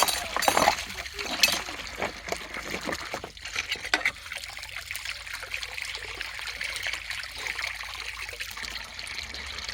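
Water trickling, with a few splashes in the first second or so, then a steady running trickle.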